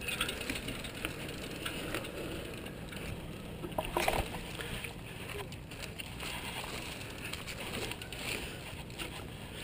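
Mountain bike rolling down a dirt trail: a steady rush of tyre and trail noise with scattered clicks and rattles from the bike over the bumps.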